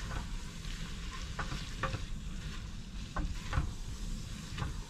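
Spaghetti being stirred with a cooking spoon in a pot of hot cheese-cream sauce on a gas stove. The hot pot sizzles and the spoon scrapes against it a few times.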